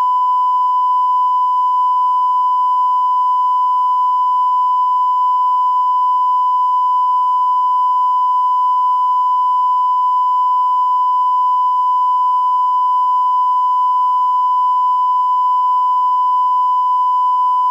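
Steady line-up test tone at one thousand hertz, the reference tone that accompanies colour bars, held unbroken at a constant level.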